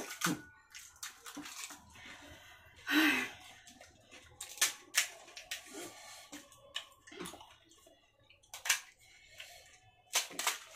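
Fuchka (crisp puffed pani-puri shells) being cracked, filled and eaten: irregular sharp crunches and wet clicks, with a louder wet crunch about three seconds in.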